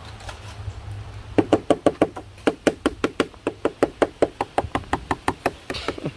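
Rapid, even knocking of a knife chopping on a wooden cutting board, about six strokes a second. It starts about a second and a half in and stops just before the end.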